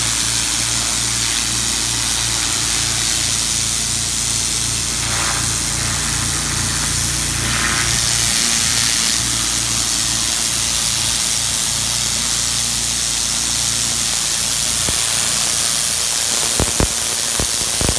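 Pressure washer running steadily: the turbo nozzle's jet hissing against concrete over the low hum of the machine's engine. A few short sharp clicks come near the end.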